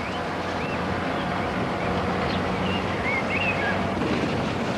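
Car driving steadily along a road: even engine and road noise with a low hum.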